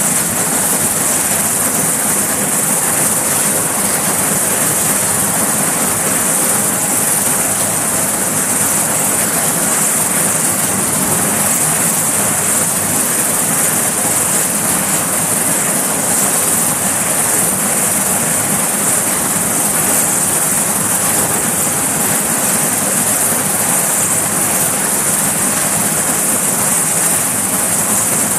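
Sikorsky S-61 helicopter's twin turboshaft engines and main rotor running steadily on the deck, loud and unchanging, with a strong high-pitched turbine hiss over the rush of the rotor.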